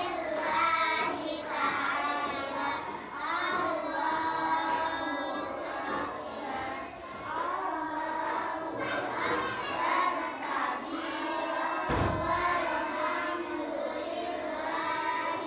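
Group of young children reciting the salat prayer aloud together in a sing-song chant. A single low thump sounds about twelve seconds in.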